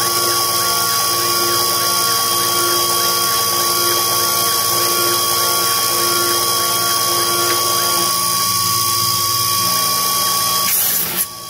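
Sherline CNC milling machine's spindle running at 10,000 rpm with a steady high whine as a small carbide tool cuts 7075 aluminium, with a regular pulsing rhythm under the whine. Shortly before the end the sound breaks off abruptly and comes back quieter.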